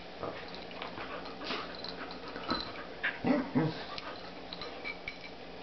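An Australian Shepherd puppy and a golden retriever play-wrestling, making short dog vocal sounds in scattered bursts, the loudest two close together about three seconds in, with small scuffling and mouthing noises between.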